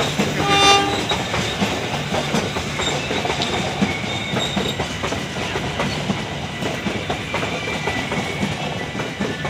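Passenger coaches of a local train rolling slowly past at close range, with a steady rumble and the wheels clacking over the rail joints. A short high tone sounds about half a second in.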